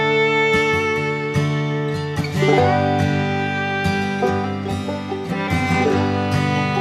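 Background music: upbeat acoustic guitar and banjo in a country/bluegrass style, with fiddle.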